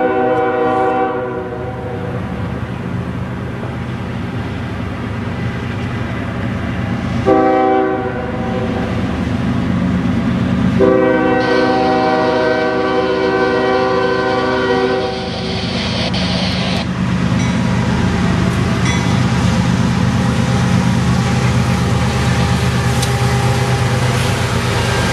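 Freight locomotive air horn sounding: a long blast ends about 2 s in, a short blast comes about 7 s in, and a long blast runs from about 11 to 15 s. Under the horn, the diesel engines of the GE ES44DC and AC44CW locomotives work hard as the train accelerates, growing louder from about 17 s as the locomotives pass close by.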